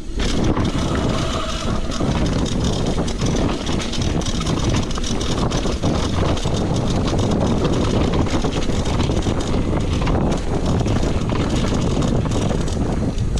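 Mountain bike riding fast down a dirt trail: steady tyre rumble over dirt and rocks with constant rattling and clattering of the bike.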